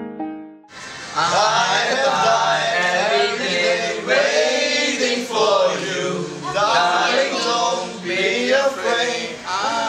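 Piano music fades out, and about a second in a group of young men starts singing together without accompaniment: the groom and his groomsmen.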